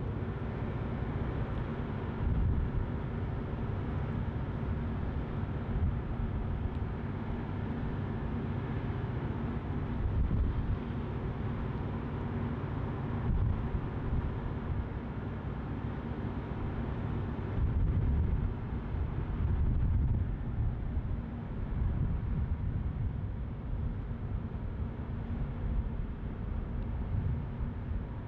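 Steady low rumble and hum of ship engines in a harbour, with irregular gusts of wind buffeting the microphone.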